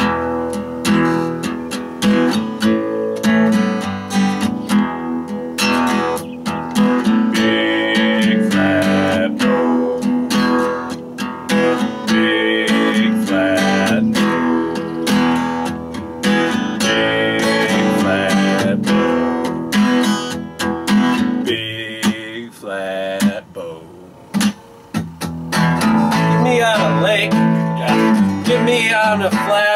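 Acoustic guitar strummed in a steady rhythm, dropping to a softer, sparser stretch for a few seconds past the middle before picking up again.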